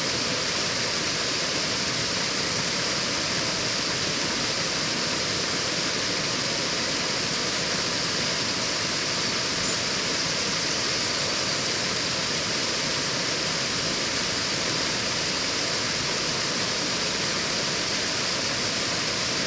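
A small waterfall pouring steadily over a low stone ledge into a shallow stream.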